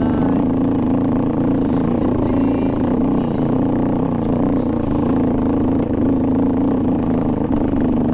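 Beta 350 RR dirt bike's single-cylinder four-stroke engine running steadily under way over a rocky trail, with scattered sharp clicks from stones and the bike rattling over them.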